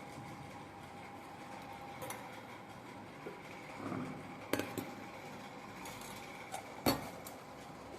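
Kitchen clatter: a few sharp clinks and knocks of dishes or utensils, the loudest near the end, over a steady background hum.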